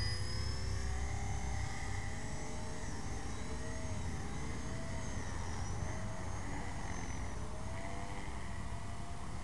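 Blade 450 X electric RC helicopter in flight: a steady rotor rumble under a motor whine of several tones that wavers slowly up and down in pitch.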